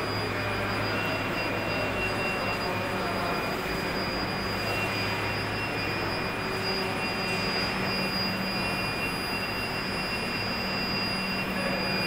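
Induction melting furnace running: a low steady electrical hum and a thin high whine over an even rushing noise, unchanging throughout.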